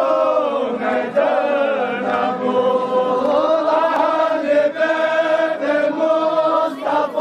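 A group of men chanting a Farsi noha, a Shia mourning lament, together in long held notes.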